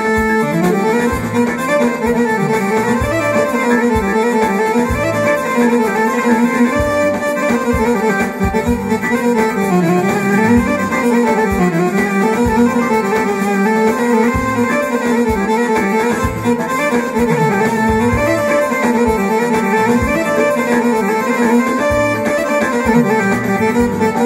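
Electronic keyboard playing a tsifteteli solo: a winding, ornamented melody in a violin-like voice over a steady beat.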